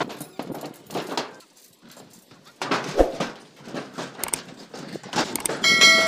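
Irregular knocking and clatter of steel rebar being handled, with a sharp thump about three seconds in. Near the end a bell-like electronic chime comes in, the sound of a subscribe-button animation.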